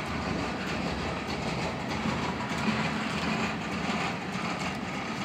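Tank cars of a freight oil train rolling past, a steady rumble of steel wheels running on the rails.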